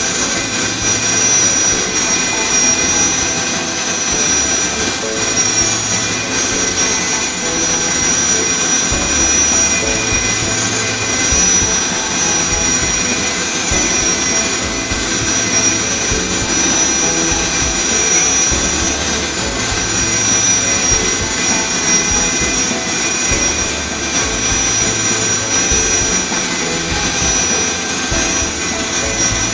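High-speed spindle of a CNC bangle-drilling machine running with a steady high-pitched whine as its cutter drills rows of dots into a plastic bangle. A lower hum comes and goes every few seconds under the whine.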